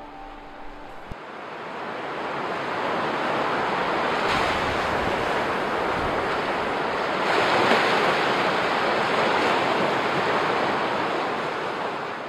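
Ocean surf washing up onto a sandy beach: a steady rushing that builds, surges twice and slowly fades.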